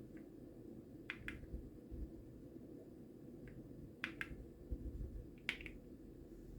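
Single keys on a Keysme Lunar 01 mechanical keyboard with Gateron Weightlessness switches pressed one at a time, each a sharp double click, three times, with two fainter ticks between.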